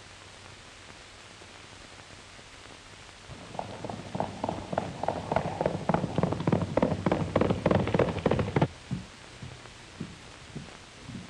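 Hoofbeats of a galloping horse, a fast run of thuds that begins a few seconds in and cuts off suddenly about two-thirds of the way through, with a few loose knocks after it. Before the hoofbeats there is only the soft hiss of an old film soundtrack.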